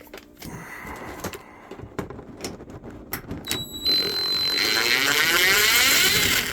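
Clicks and handling of parts, then a cordless power driver runs with a steady high whine for about two and a half seconds, likely backing out a screw, and stops just before the end.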